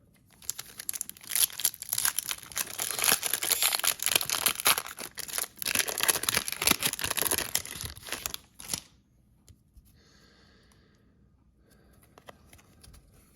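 A foil-plastic trading card pack wrapper being torn open and crinkled, with dense crackling for about eight seconds that stops fairly suddenly, followed by faint handling.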